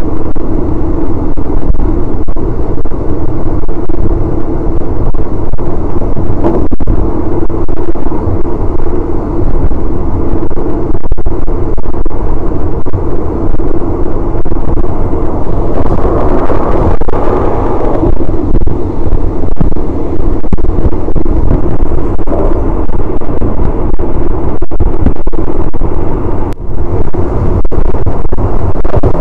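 Passenger train running along the line, heard at an open window of a third-class carriage: a loud, steady rumble of wheels on rails with rushing wind and a few scattered clicks.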